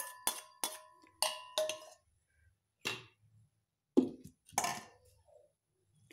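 Steel bowl knocking against the rim of a stainless steel mixer-grinder jar as fried ginger pieces are tipped in: a quick run of ringing metal clinks in the first couple of seconds. Then three separate knocks as the plastic lid is put on the jar.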